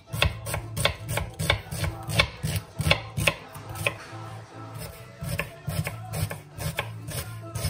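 Chef's knife chopping an onion on a wooden cutting board: irregular knocks of the blade striking the board, two or three a second, with a short pause about halfway through.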